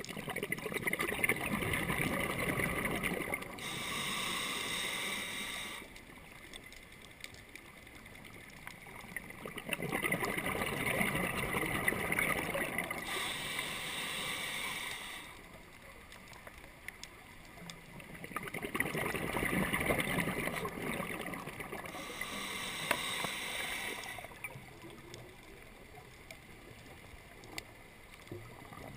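Scuba diver breathing through a regulator underwater. Three times, a rush of exhaled bubbles lasts about three seconds and is followed by a shorter hiss of inhaled air and then a pause of a few seconds.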